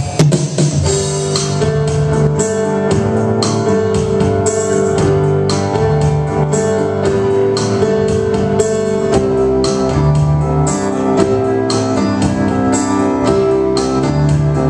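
Live band playing an instrumental passage: held electric keyboard chords over a steady drum beat.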